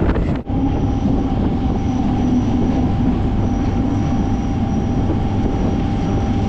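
MEMU electric train running: a steady rumble with a steady whine. For the first half second there is wind noise on the microphone, cut off suddenly.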